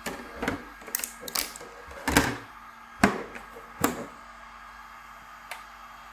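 A freshly 3D-printed PLA phone case being flexed and popped off a PET build sheet on the printer's plate: a run of sharp clicks and crackles, the loudest about three seconds in. After that there is a faint steady hum.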